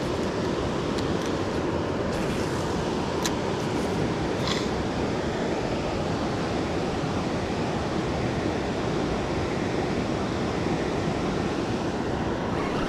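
Steady rush of fast-flowing river water running high with floodwater, with a couple of faint ticks about three and four and a half seconds in.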